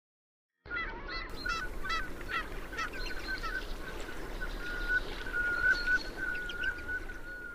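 A flock of Liancheng white ducks quacking in quick, repeated short calls, starting about half a second in. From about halfway, a long steady high tone is held over the calls.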